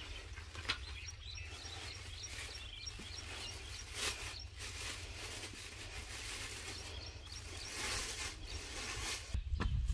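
Outdoor ambience: a steady low wind rumble, with a small bird chirping in a quick repeated series during the first half. A few light clicks and knocks come as fishing rods and tackle are handled, and the rumble grows louder near the end.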